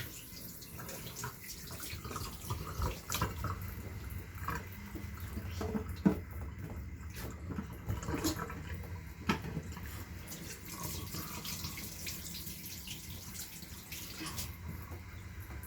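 Tap water running into a sink while hands are washed under it, with irregular splashes and small knocks against the basin.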